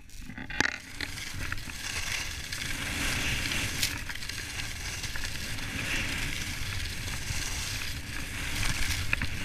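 Skis sliding and carving downhill over packed snow, a steady scraping hiss, with wind buffeting the microphone as a low rumble.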